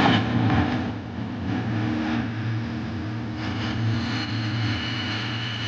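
Nordmende Caruso console tube radio's loudspeakers playing FM reception: a low droning tone that comes and goes, over a steady hiss.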